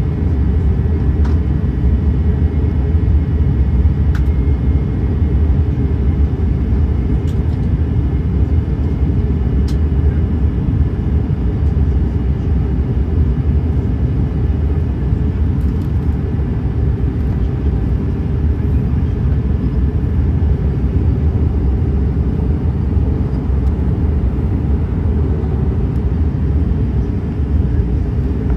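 Steady cabin rumble inside an Airbus A321-131 airliner on approach, from its IAE V2530 turbofans and the air rushing past the fuselage, with a faint steady whine above it. A few faint ticks come through in the first ten seconds.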